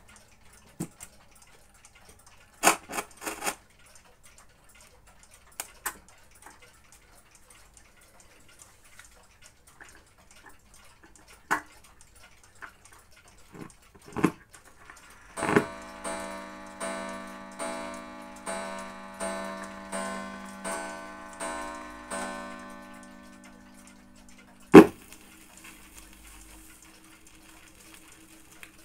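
RFT Ziphona Rubin 523 record player being set up: scattered clicks and knocks as its controls and tonearm are handled, then a run of regular ringing ticks, about one and a half a second, for several seconds. Near the end a loud click as the stylus drops onto the record, followed by a low steady hum.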